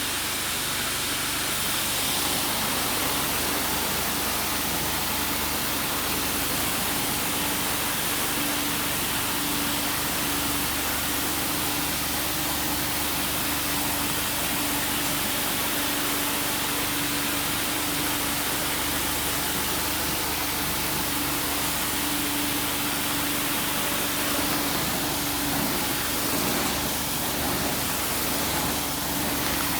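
A machine running steadily: an even hiss with a constant low hum under it.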